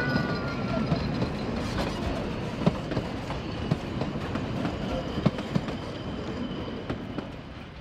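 Narrow-gauge railway carriages rolling past on the track: a steady rumble with irregular clicks from the wheels over the rails, fading as the last carriage goes by.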